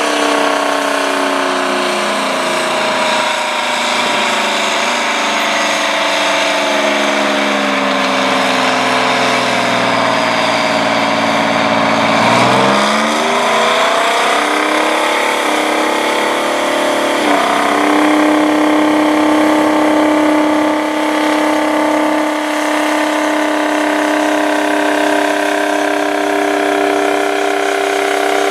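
Detroit Diesel 12V92 V12 two-stroke diesel of the 750 hp Rite 750 Earthquake tractor working under load while pulling a 20-bottom moldboard plow. The engine note sags slowly for about twelve seconds, then climbs quickly as the stacks puff black smoke, and holds steady for the last ten seconds.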